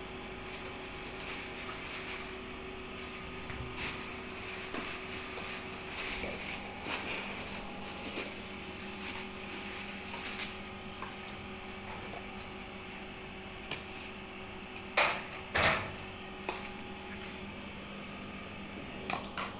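Plastic containers and bags being handled: scattered light clicks and rustles, with two sharp knocks about fifteen seconds in, over a steady appliance hum.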